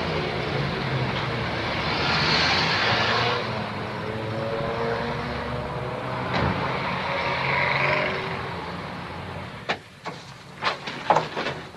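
Street traffic: vehicles driving past with engines running, swelling twice as cars pass close. About ten seconds in the traffic stops and a quick run of sharp clicks and knocks follows, made by things being handled in a bag.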